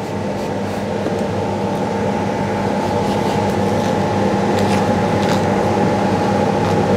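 Steady drone of a commercial kitchen's extraction or ventilation fan, a hum with several fixed tones, slowly getting louder. Over it come a few faint light clicks as the thick peel of a pomelo is scored and pulled away.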